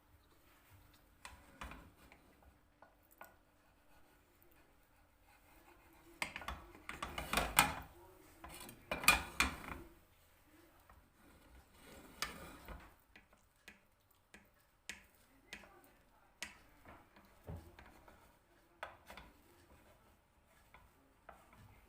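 Dishes and cutlery being handled, with scattered clinks and knocks and a busier run of clatter about six to ten seconds in.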